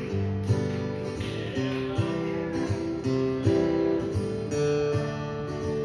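Acoustic guitar strummed in an instrumental break of a country-style song, chords changing about every half second.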